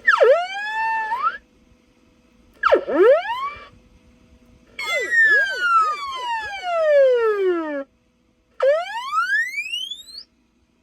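Electronic sci-fi sound effects from a CB radio key-up sound module, stepped through one after another: a swoop that dips and rises, a second short swoop, a long falling glide of about three seconds, then a rising glide near the end, with short gaps between them.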